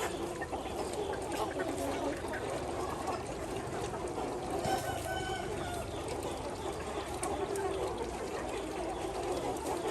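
A flock of Ho chickens clucking and calling over one another, with a rooster crowing in longer drawn-out calls near the end.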